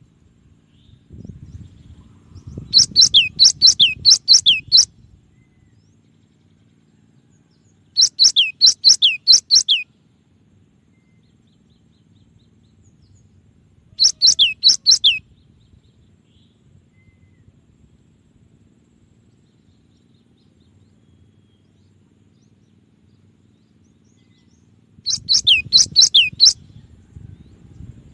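Cinereous tit (gelatik batu) singing four bursts of quick repeated notes, each a sharp whistle sliding downward, about five or six notes per burst, with pauses of several seconds between bursts.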